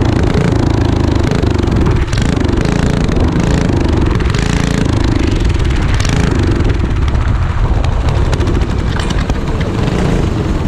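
Go-kart engine running hard at racing speed, heard from on board, its pitch rising and falling as the throttle changes through the corner and onto the straight.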